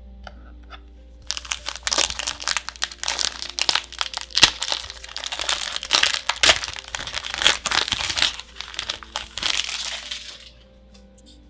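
Booster-pack foil wrapper crinkling and being crumpled, with many sharp crackles. It starts about a second in and dies away near the end, over soft background music.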